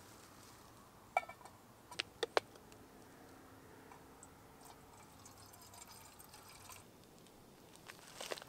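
A few sharp clinks as a mug is handled, then water poured from a plastic bottle into the mug for several seconds. Near the end, a short crinkle of a foil meal pouch being picked up.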